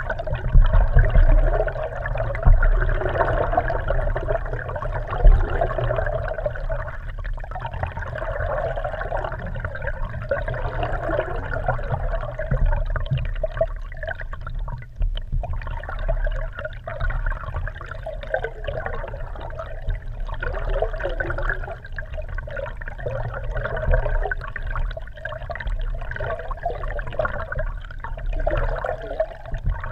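Water rushing and gurgling around a GoPro Hero3 camera housing held underwater beneath a moving kayak, heard muffled through the case, with a steady low rumble and uneven swells.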